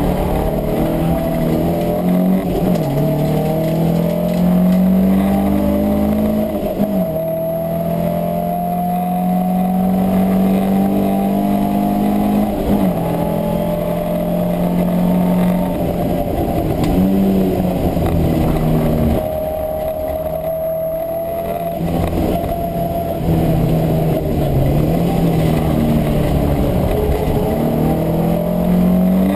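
Racing saloon car's engine heard from inside the cabin while lapping at race pace: the note climbs hard under acceleration and falls back sharply several times, with one long steady climb lasting several seconds in the middle.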